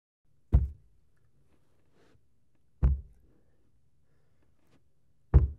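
Three loud, heavy knocks, evenly spaced about two and a half seconds apart, over a faint low hum.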